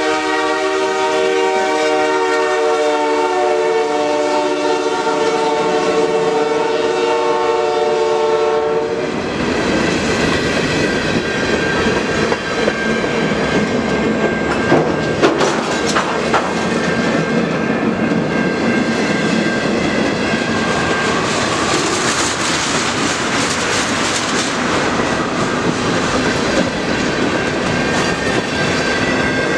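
Lake State Railway freight locomotive sounding its horn in one long, steady chord that cuts off about nine seconds in as the engine passes. Then freight cars roll by with a steady rumble and clickety-clack of wheels on rail joints, with a couple of sharp clanks about halfway through.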